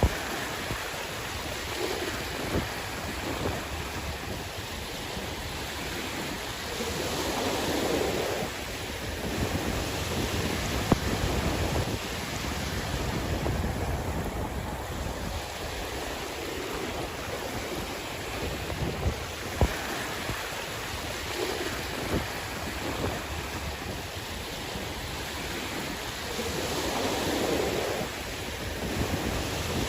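Sea waves washing in and out, swelling louder twice as waves break, with wind buffeting the microphone and a couple of brief sharp clicks.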